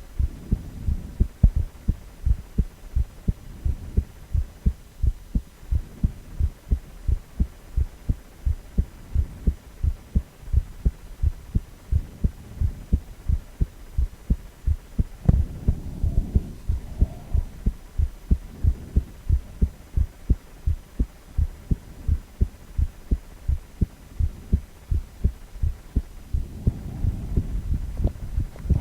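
A man's heartbeat, a steady, even run of low thuds. The low background rises briefly about halfway through and again near the end.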